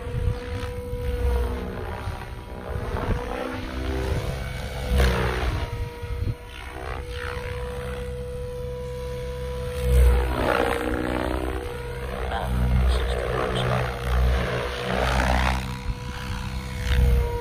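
SAB Goblin Black Thunder, an electric 700-class RC helicopter, in flight: a steady motor and gear whine with rotor noise that swoops up and down in pitch as it passes. The rotor noise surges loudly several times, loudest about ten seconds in.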